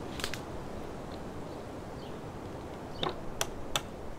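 A few sharp cracks of dead wood being handled in dry leaf litter: one about a quarter second in, then three close together near the end, over a steady background hiss.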